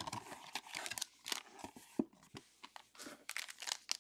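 Trading-card box packaging being handled and opened by hand: irregular crinkling and tearing of wrapper and card stock, with a sharper tap right at the start and again about two seconds in.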